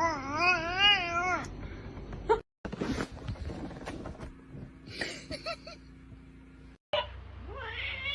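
A cat yowling in a long, warbling voice that wavers up and down about three times a second. After a cut there is a quieter stretch of mixed small sounds, and near the end a cat gives a rising and falling meow.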